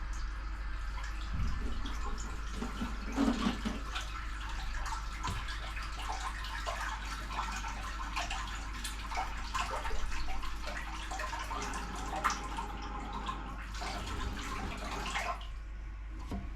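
Water running and splashing with drips, as a toilet cistern fills during a leak test of a newly fitted flush valve.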